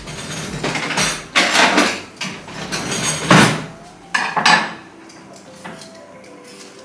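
Kitchen prep noise: a raw chicken is handled and cut with a knife in a glass bowl. There are a few loud rustling, scraping and clattering bursts over the first four to five seconds, then it goes quieter.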